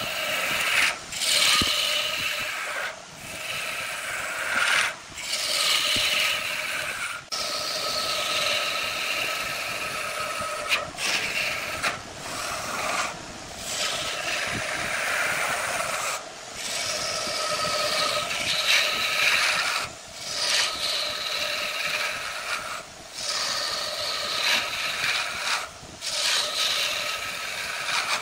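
Wood being cut on a lathe: a turning tool scraping and shaving a spinning workpiece. The hiss runs in passes, with short breaks every second or few.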